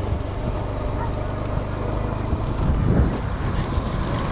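Steady motor-vehicle engine and road noise, swelling briefly about three seconds in.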